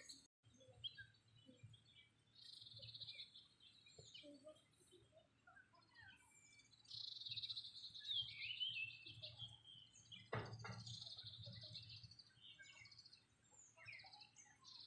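Faint outdoor birdsong: several bursts of high, rapid chirping from small birds, with a single dull knock about ten seconds in.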